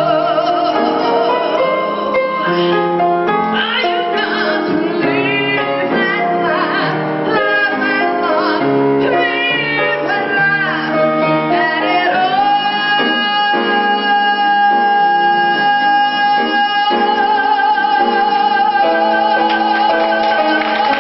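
A woman sings a musical-theatre song with instrumental accompaniment, showing off her vocal power. About halfway through she holds one long high note to the end.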